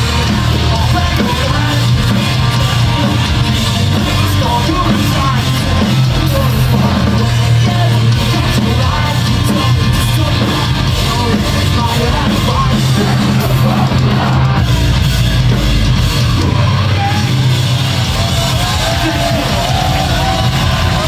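Live pop-punk band playing loud and continuously: distorted electric guitars, bass and drums with yelled and sung vocals.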